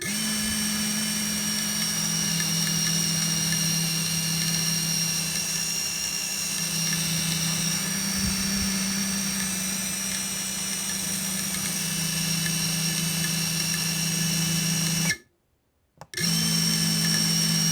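FPV cinewhoop drone's motors and propellers spinning with a steady whine. The spin carries an odd resonant, rattling noise that the owner suspects comes from the propellers. The sound cuts out for about a second near the end, then starts again.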